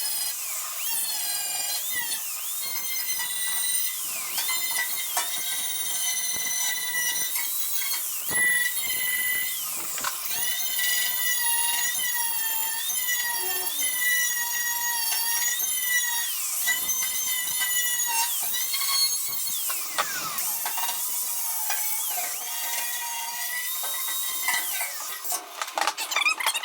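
Power grinder working sheet metal: a steady high whine that rises and falls in pitch as the tool is loaded and eased off, with a few brief pauses.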